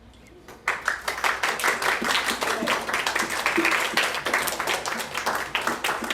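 Audience applauding: many people clapping, starting suddenly about a second in and carrying on steadily, with a few voices among the claps.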